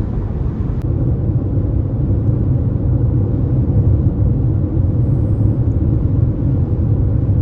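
Low, steady road and engine noise of a car driving along, heard from inside the cabin.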